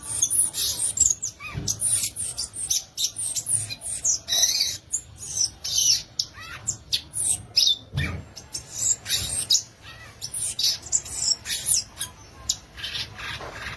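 Violaceous euphonia (gaturamo-verdadeiro) singing a fast, continuous run of short, high chirps and twitters.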